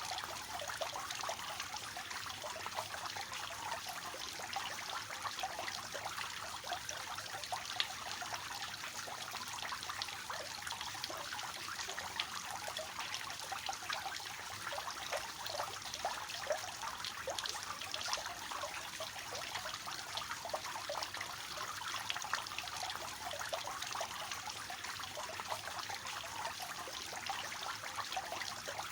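Water spilling from the tiers of a three-tiered fountain, a steady splashing trickle with many small splashes.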